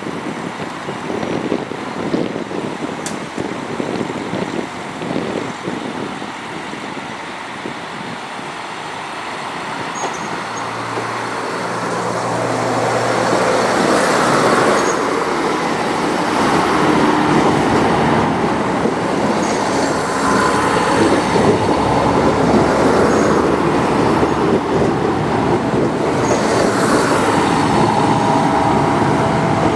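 JR Kyushu KiHa 66/67 diesel multiple unit running along the platform close by, its diesel engines and wheels on the rails making a steady noise that grows louder about a third of the way in and stays loud as the cars go by.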